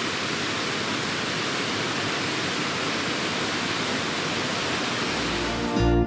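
A waterfall's steady, even rush of falling water, the flow swollen by the previous day's heavy rain.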